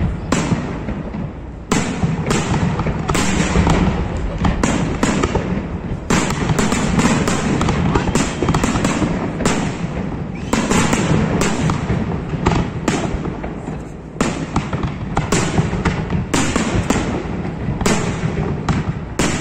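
Aerial firework shells bursting in a rapid, continuous barrage: many sharp bangs in quick succession with crackle in between.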